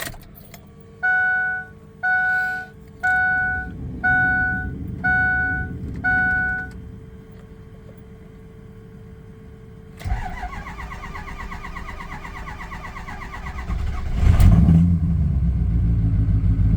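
Six beeps about a second apart, then a Ford 6.0L Power Stroke V8 diesel cranking on its starter for about four seconds before it fires and settles into a steady idle. The long crank is the extended-crank, delayed-start fault, which the mechanic takes to be more than likely a high-pressure oil leak keeping injection control pressure from building.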